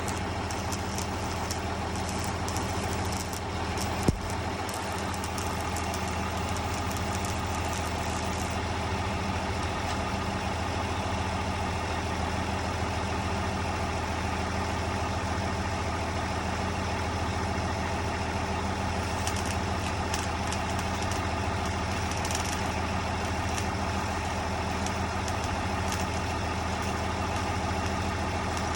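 A vehicle engine running steadily at idle, with one sharp click about four seconds in.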